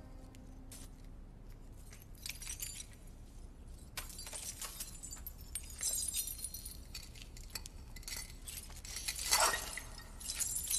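Shards of broken glass clinking and scraping as they are handled and moved through, sparse at first and busier from about four seconds in, with the loudest clatter near the end.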